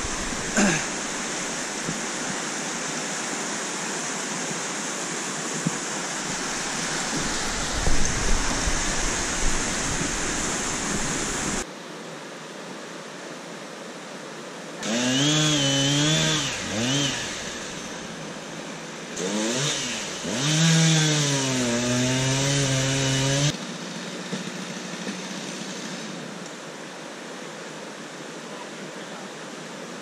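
Rushing river rapids, then a two-stroke chainsaw revving and cutting in two runs of a few seconds each, its pitch rising and dipping with the load.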